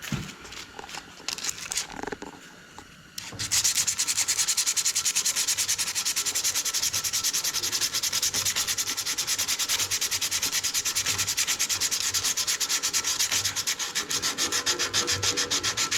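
Sandpaper rubbed by hand in fast, even back-and-forth strokes over a rusty small-engine ignition magnet, scrubbing off rust so it will give spark. Starts about three seconds in after some light handling clicks.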